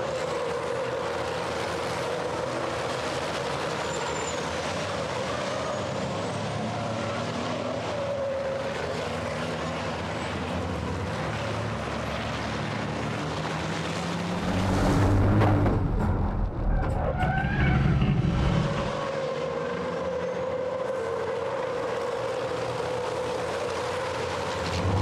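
Racing trucks' turbodiesel engines running hard on a circuit, a steady drone with a louder, deeper close pass from about fifteen to nineteen seconds in.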